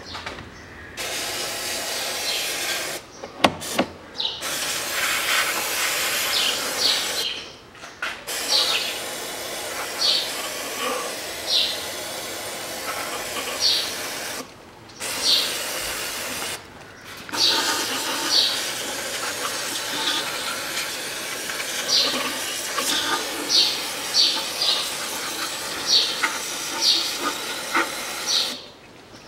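Aerosol cleaner spray can hissing in several long bursts with short pauses between them, sprayed onto a manual gearbox casing to wash off spilled gear oil.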